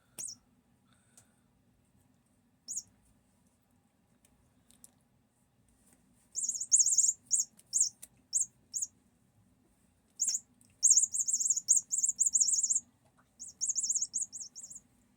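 Chirping from a catnip cat toy shaped like a little red bird, in short bouts of rapid, high chirps. Single chirps come near the start, and longer runs of quick trills follow from about six seconds in, as the cat plays with the toy.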